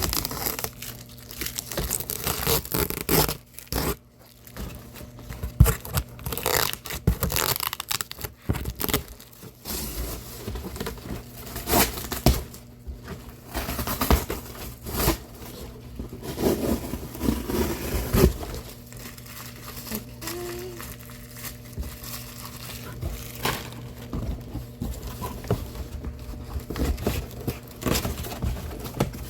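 A cardboard shipping box being torn and broken down by hand: irregular rips, crumpling and scraping with sharp knocks, loud enough that she apologised to earbud listeners.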